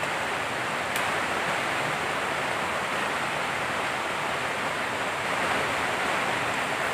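Steady rush of flowing river water, with a faint click about a second in.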